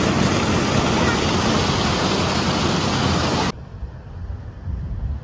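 Loud, steady rushing noise that cuts off abruptly about three and a half seconds in. A lower, gusty rumble of wind on the microphone follows.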